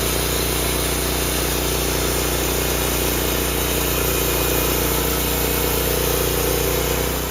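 Engine running steadily at an even speed; the sound falls away at the very end.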